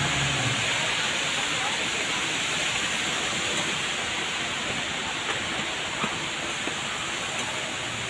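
Steady hiss of a large indoor hall's background noise, with a few faint footstep taps on stone stairs about five to seven seconds in; background music trails off at the very start.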